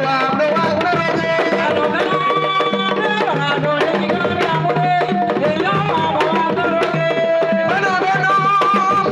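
Drum-led music: a steady, repeating low drum pattern with a melody of held, sliding notes over it.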